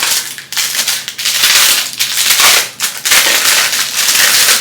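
Packaging being crinkled and torn open close to the microphone: a loud, continuous run of rustling and crackling as an unboxed item is unwrapped.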